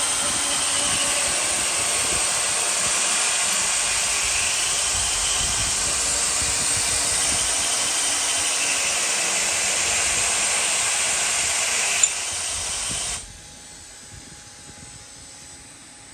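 Compressed-air blast hissing steadily from the CNC mill's nozzles onto the tap as it threads holes in the cast iron plate. A short click about twelve seconds in, then the air cuts off about a second later, leaving only a low machine hum.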